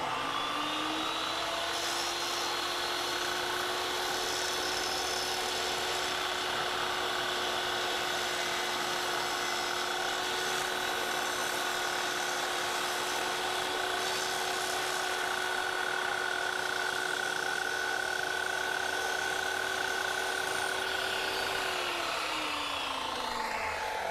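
Table saw motor and blade spinning up at the start and running at a steady high whine while a baseboard is fed freehand through the blade. Near the end it is switched off and winds down with falling pitch.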